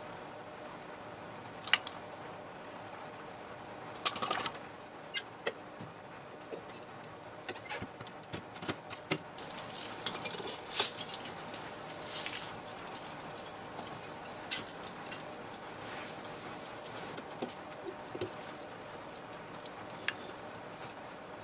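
Irregular metallic clinks, knocks and scrapes of tools at work around molten bronze: a skimming tool against the crucible, then tongs lifting hot plaster molds in metal flasks and setting them down on firebrick. The clinks come in scattered single strikes and a busier cluster about halfway through, over a steady faint hum.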